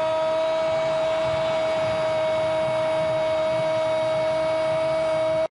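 A TV football commentator's long, held "goooool" shout at one steady pitch over stadium crowd noise, cut off suddenly near the end.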